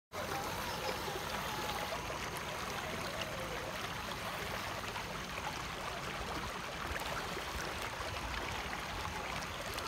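Shallow river water flowing and rippling steadily over rocks.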